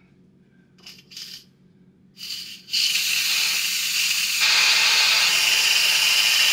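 Electric pressure cooker's steam release valve being opened to let off the remaining pressure: a couple of short sputtering spurts, then a loud steady hiss of venting steam from about three seconds in, which gets louder again a second or so later. This is the manual quick release of the pressure left after a ten-minute natural release.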